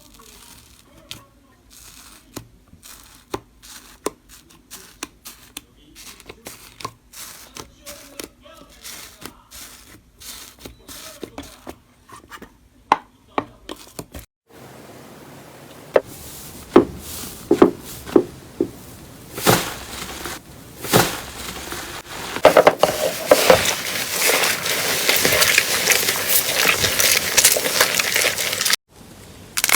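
Slime being squeezed and pressed by hand, first as a string of small sticky clicks and pops. About halfway through, it gives way abruptly to a louder, denser crackling that builds up over the last several seconds.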